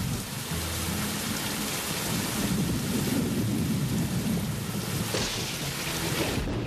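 Thunderstorm sound effect: steady heavy rain with thunder rumbling low underneath.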